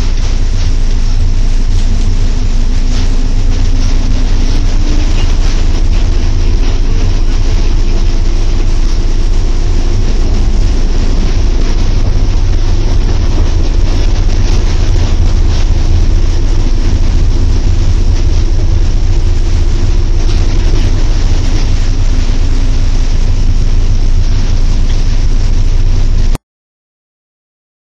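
Inside the cab of a PKP EP07 electric locomotive running at speed: a loud, steady low rumble and rattle of the moving train, with a faint humming tone that rises slightly early on and then holds. The sound drops out completely for about two seconds near the end.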